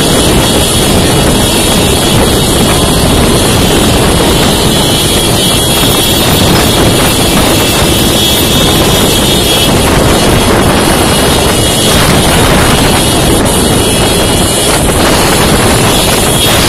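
Loud, steady rush of wind across the microphone, with a vehicle's running noise underneath.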